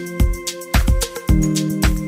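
Background music: a steady beat, about two strikes a second, over held notes that change chord just over a second in.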